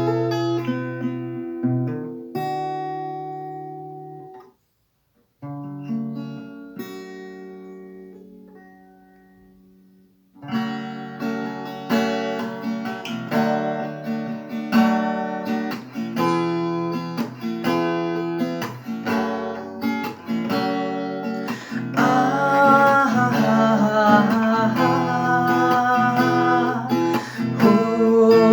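Acoustic guitar, capoed at the second fret, playing an intro in Em, C and D. Two chords are struck and left to ring out, then steady rhythmic strumming starts about ten seconds in.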